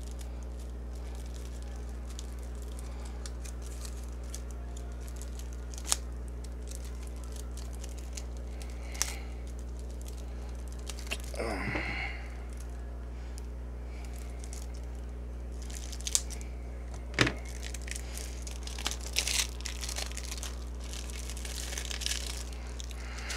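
Trading-card deck packaging being torn open and crinkled by hand, with a few sharp clicks and snaps; the main tear comes about halfway through and crinkling follows near the end. A steady low hum runs underneath.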